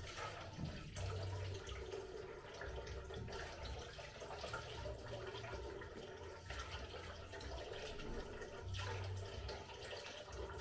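Water sloshing and dripping as leafy greens are rinsed by hand.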